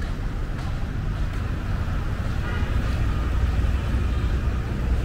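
Outdoor street noise: a steady low rumble of traffic.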